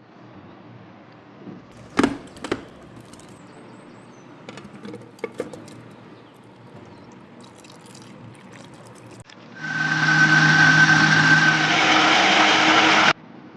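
Panasonic MK-F510 food processor's motor running loudly for about three and a half seconds, starting about ten seconds in and cutting off suddenly. Earlier, two sharp knocks come about two seconds in, followed by a few light clicks.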